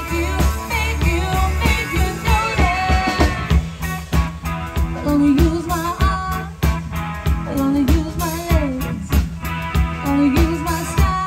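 Live band music: a pop-rock song with guitar, a steady drum beat and bass, and a melody line that glides up and down.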